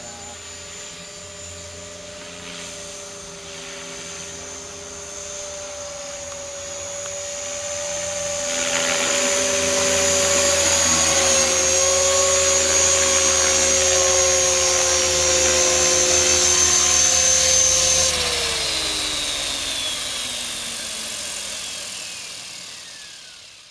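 Align T-REX 500 electric RC helicopter: a steady whine from its motor and rotor that grows louder as it comes in close and hovers low. About three quarters of the way through, the whine falls steadily in pitch and fades as the rotor spools down after landing.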